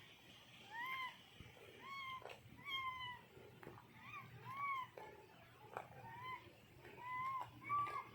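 A young animal's short, high mewing calls, repeated about once a second, each rising and then falling in pitch.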